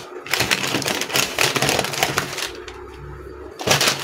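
Brown paper pattern and tulle rustling and crinkling as they are handled and pleated, with many short crackles, easing off for about a second near the end.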